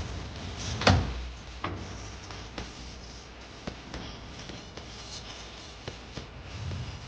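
Irregular knocks and clicks, about half a dozen, the loudest about a second in, over a low steady hum.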